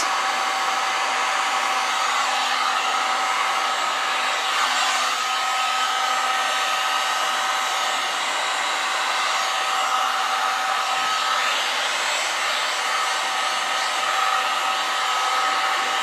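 Handheld electric heat gun running steadily, blowing hot air across wet epoxy resin; a steady rush of air with a constant motor whine on top.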